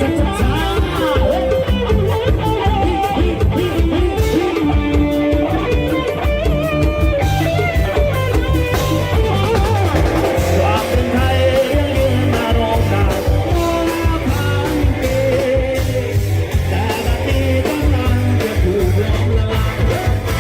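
Loud amplified live band music from a Thai rot hae parade-truck band: a wavering guitar melody with singing over a heavy, steady bass and drum beat.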